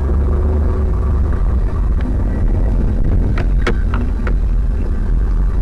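Car on the road: a steady low rumble of engine and road noise. A handful of short clicks or knocks come close together a little past the middle.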